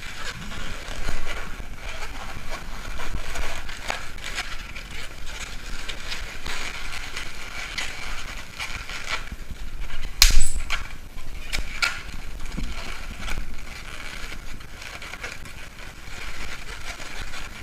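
Latex modelling balloons squeaking and rubbing against each other and the hands as they are twisted and shaped into a balloon rose. There is one sharper, louder squeak about ten seconds in.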